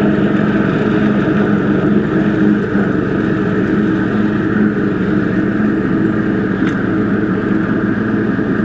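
A 2006 John Deere X320 riding mower's engine running steadily with the mower deck engaged, cutting dry grass.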